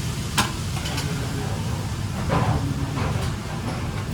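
Kitchen noise: a steady low rumble and hiss, with a sharp clack about half a second in and a few lighter clatters later on.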